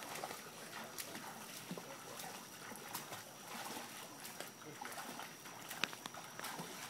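Faint, light splashing of a child swimming backstroke in a pool, her arms breaking the water in small irregular splashes, with a thin steady high-pitched tone in the background.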